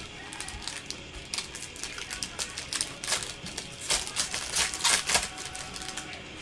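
Foil trading-card pack wrapper crinkling and tearing as it is ripped open, a fast run of crisp crackles that is loudest about four to five seconds in and stops shortly after.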